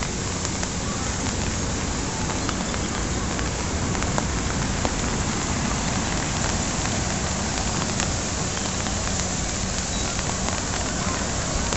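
Steady hiss of falling water on a stone fountain basin and its pool, with a few faint scattered ticks and a faint low hum underneath.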